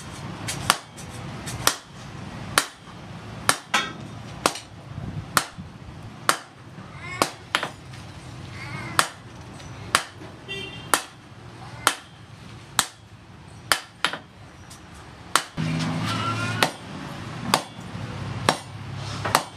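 Hand hammer striking a red-hot steel sword blade on a post anvil, one sharp metallic blow about every second in a steady rhythm.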